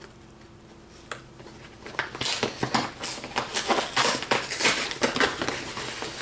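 Cardboard USPS Priority Mail box being torn open by hand. It is quiet with a single scrape at first; then, from about two seconds in, comes a run of rapid ripping and crackling of cardboard and tape.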